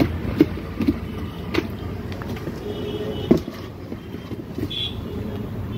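Steady low rumble of background road traffic, with a few sharp knocks and taps as a plastic motorcycle helmet is handled and turned over.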